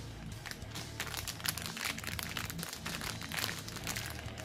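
Clear plastic bag crinkling in the hands as it is turned over, in irregular crackles.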